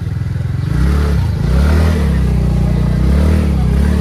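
Small scooter engine running at low speed with the throttle opened about a second in, its pitch rising and falling twice as it is ridden slowly into a parking spot.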